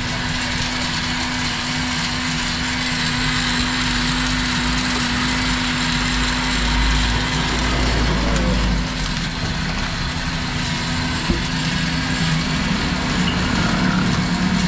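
A motor running steadily with a constant low hum. A deeper rumble swells and fades between about four and nine seconds in.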